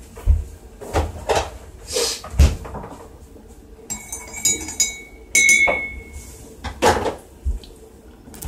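Household fridge opened and shut while milk is fetched from it, with knocks and thuds and a few sharp ringing clinks of glass about four to six seconds in.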